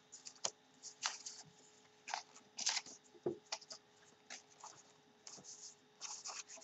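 Paper and craft materials handled and rummaged through: scattered short paper rustles and a few light taps.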